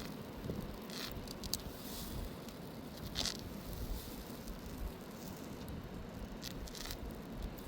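Scattered light rustles and crackles, a handful of short ones spread through, over a steady low rumble.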